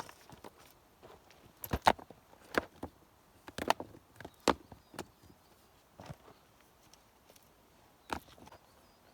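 Irregular sharp knocks of hand work with wood: about seven separate strikes at uneven intervals, the loudest about two seconds in.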